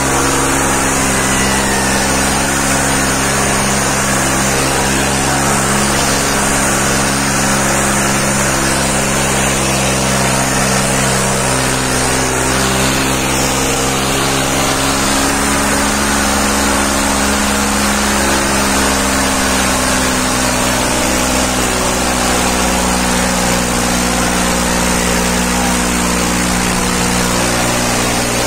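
John Deere 5310 tractor's three-cylinder diesel engine running steadily under heavy load, dragging two disc harrows through the soil.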